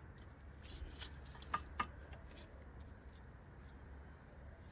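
Faint clicks and light knocks of the brake pads and caliper being handled and pushed back into place, a handful scattered through the first two and a half seconds over a low steady hum.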